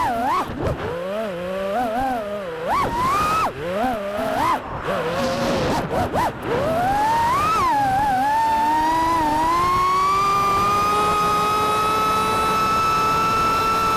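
FPV quadcopter's brushless motors and propellers whining, the pitch swinging up and down with quick throttle changes. From about seven seconds in it climbs and holds a steady high whine.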